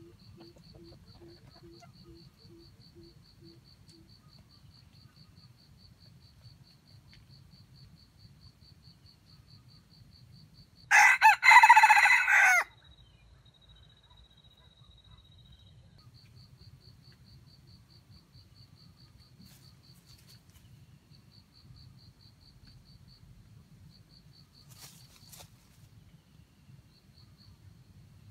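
Red junglefowl rooster crowing once, a short crow of under two seconds about eleven seconds in, with a faint fast high-pitched insect trill around it.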